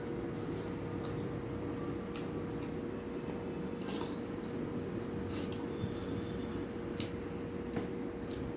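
Wet squishing and scattered clicks of rice being mixed with thin fish curry by hand in a steel plate, together with chewing and lip smacks, over a steady hum in the background.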